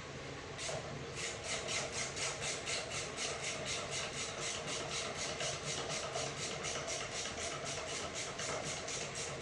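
Rapid, evenly paced sharp clicking, about five clicks a second, from a ratcheting mechanism turned by hand on an 8HP45X automatic transmission.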